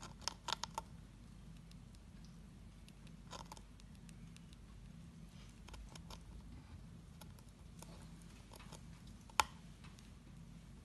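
Syrian hamster gnawing at a wooden log tunnel: scattered sharp clicks of teeth on wood, with a quick cluster of clicks about half a second in and one louder click near the end, over a faint steady low hum.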